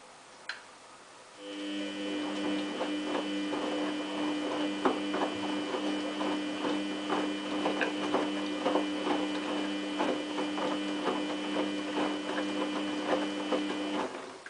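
Samsung WF8804RPA washing machine turning its drum slowly during the main wash. The drive motor starts about a second and a half in, hums steadily for about twelve seconds and stops sharply near the end, while the wet dog covers tumble and splash in the drum with frequent soft knocks.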